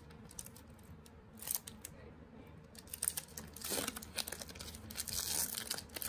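Trading cards being handled and flipped through: cards sliding and scraping against one another, with light rustling and small clicks in a few short bouts, the longest in the second half.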